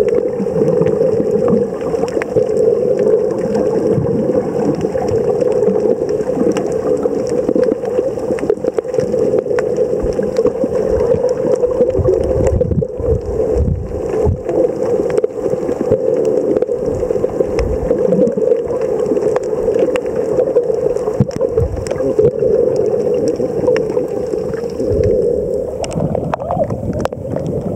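Muffled underwater noise picked up through a camera's waterproof housing: a steady drone with scattered faint clicks and crackles. Near the end it turns to water sloshing at the surface as the camera comes up.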